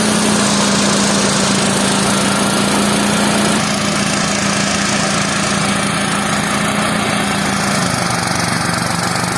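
Small engine of a rice threshing machine running steadily, with a dense mechanical whir over its constant note, which shifts slightly lower about eight seconds in.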